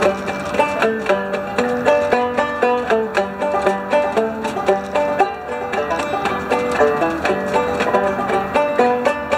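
Five-string open-back banjo played clawhammer style: a steady, even stream of picked notes.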